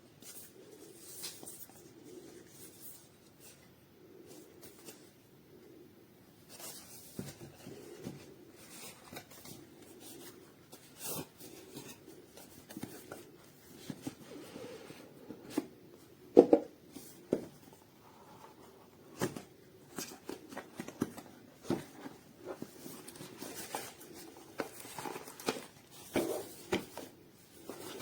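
Handling noises: scattered rustling, taps and short clicks over a faint steady hum, with one sharp click about sixteen seconds in.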